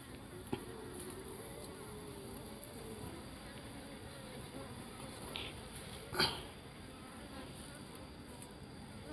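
Honeybees from a wild nest opened in a tree cavity buzzing in a faint, wavering hum, the bees stirred up by the nest being broken into. A brief knock sounds about six seconds in.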